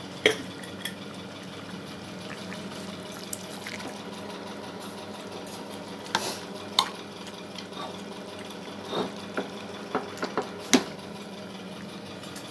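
Squid adobo simmering in a pan on a gas stove over a steady low hum, with a spoon clinking and scraping against the pan about nine times, most of them in a cluster near the end, stirring in the sugar.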